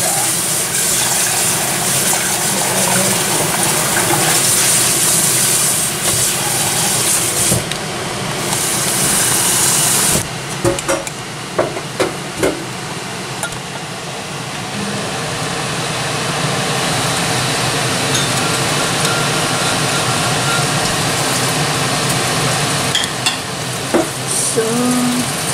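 Hot cooking oil sizzling around a wooden chopstick held in the pot, a test of whether the oil is hot enough for frying. The hiss drops back about ten seconds in, and a few sharp knocks follow.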